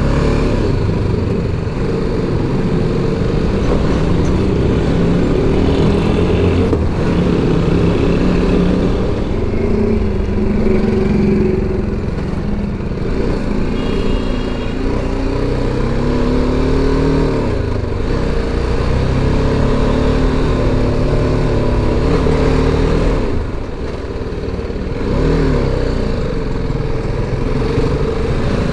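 BMW G310GS motorcycle's single-cylinder engine running under way, its note rising and falling with the throttle, briefly easing off a little before the end.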